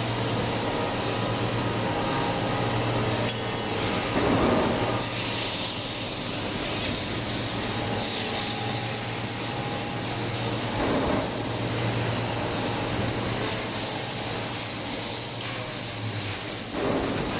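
CNC machining centres running in an aluminum-profile factory: a steady low hum under a continuous mechanical hiss, with brief louder swells about four, eleven and seventeen seconds in.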